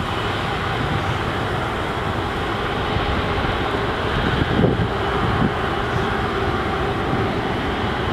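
Jet engines of an Airbus A330 (Rolls-Royce Trent 700s), a steady loud rushing noise, with a few low thumps about halfway through.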